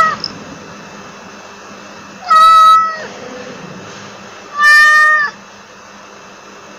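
Domestic cat meowing: two short meows of even pitch, each well under a second, about two seconds apart, with the tail of another meow just at the start. A steady low hiss fills the gaps between them.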